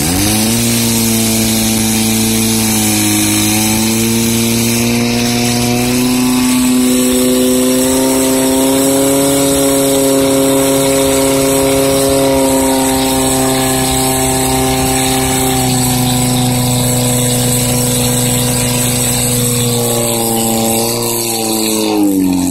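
Portable fire pump engine running flat out, pumping water through the hoses to the targets. It revs up sharply at the start and holds a steady high pitch, then its revs fall away near the end as it is throttled back.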